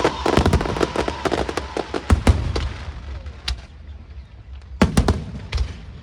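Fireworks going off: a dense run of crackling reports that thins out over the first two seconds, then a few separate bangs, one about two seconds in and another near five seconds.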